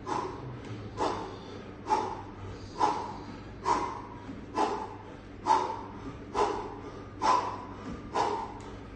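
A boxer's sharp, grunted exhalations with each punch while shadowboxing, evenly paced at about one a second, over a steady low hum.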